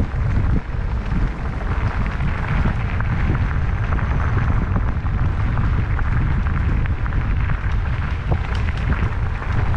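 Mountain-bike ride heard through an action camera: a steady wind rumble on the microphone, with tyre noise and many small rattles and clicks from riding over a rough track.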